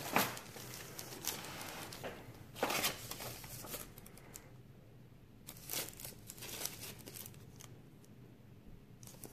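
Plastic packaging bags crinkling and paper inserts rustling as parts are handled and pulled from a molded pulp tray. The crinkles come in irregular bursts, busiest in the first three seconds and again around six seconds in.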